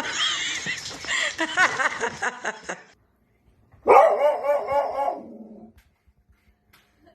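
A dog barking and yipping in two stretches: a busy run of calls, then a short gap, then one loud outburst about four seconds in that trails off.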